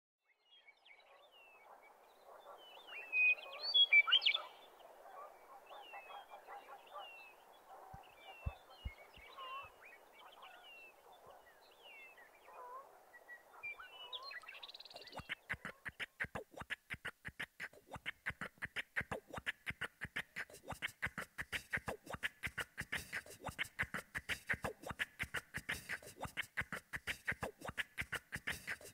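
Opening of a vocal beatbox track: bird-like chirps and whistles over a soft hazy background, with one loud whistle about four seconds in. About halfway through, a fast, even beatboxed rhythm of clicks and percussive mouth sounds starts.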